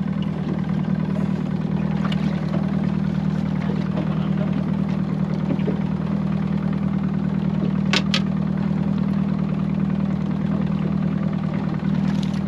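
Boat's outboard motor running steadily at low trolling speed, a constant drone. A sharp double click about eight seconds in.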